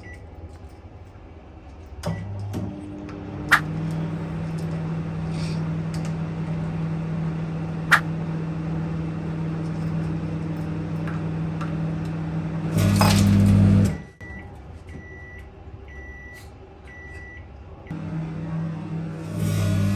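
Amadana microwave oven running with a steady hum and arcing inside: sharp snaps at about three and a half and eight seconds in, and a louder burst of noise about thirteen seconds in. It then stops, beeps four times and starts humming again near the end. The owner suspects a faulty mica plate (waveguide cover) behind the sparking.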